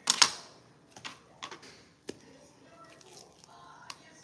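Kitchen knife chopping down onto a plastic cutting board while raw chicken is cut: two sharp knocks right at the start, then a few lighter, scattered taps and clicks.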